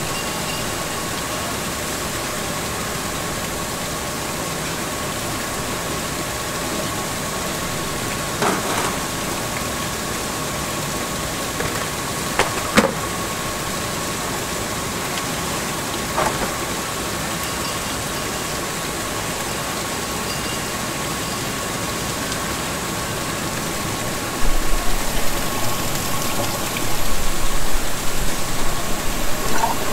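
Steady hum and hiss of factory machinery and ventilation, with a steady high whine over it. A few sharp knocks come through the middle. Uneven rumbling and bumping of handling noise take over in the last five seconds.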